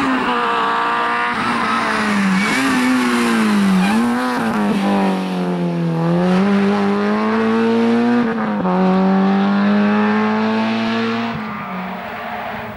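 Peugeot 205 GTI rally car's four-cylinder engine revving hard as it works through a tight tyre chicane, the pitch falling and climbing again several times as the driver lifts and accelerates. About eight and a half seconds in the pitch drops sharply at a gear change, holds steady, then the engine fades near the end as the car moves away.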